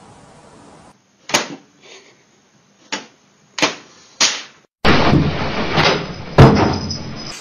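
Several short, sharp knocks, then a louder stretch of noise with one loud bang near the end.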